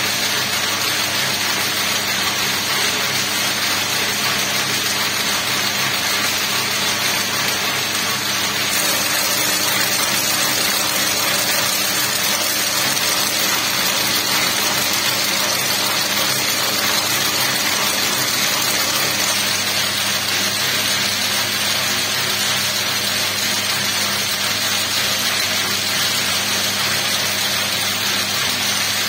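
Electric braiding machine running steadily as its bobbin carriers circle and braid silk cord: a continuous mechanical whir with a low hum underneath.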